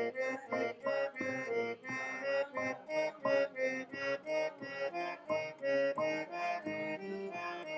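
Harmonium playing an alankar, a sargam practice pattern, as a quick run of stepwise notes going up and down, about three to four notes a second.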